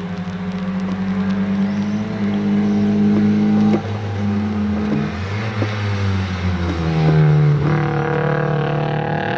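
Classic Mini race cars' four-cylinder engines running at racing revs as the pack circulates. One engine note drops abruptly about four seconds in, as on a gear change or a lift off the throttle. Rising notes follow as the cars accelerate, and one car passes close near the end.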